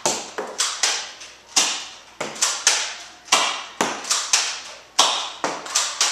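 Nerf N-Strike Maverick REV-6 spring-powered blaster being cocked and fired over and over: a string of sharp plastic clacks and snaps as the rear priming slide is worked and each dart is shot.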